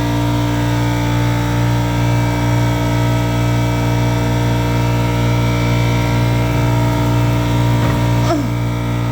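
Shop air compressor running, a steady machine hum with a fast, even pulsing.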